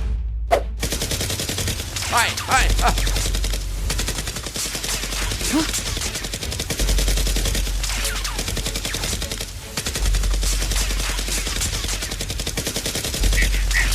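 Rapid, continuous automatic gunfire: dense volleys of shots with hardly a break, over a low bass hum that comes and goes.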